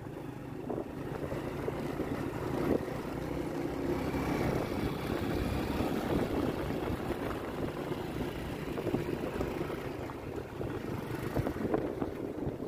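Motorcycle engine running as it is ridden, with wind rushing over the microphone.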